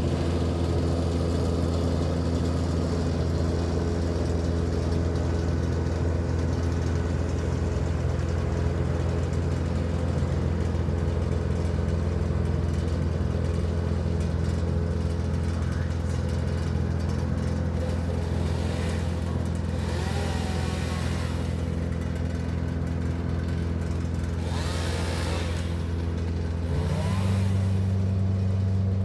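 An engine running steadily at constant speed, its pitch and loudness stepping up near the end.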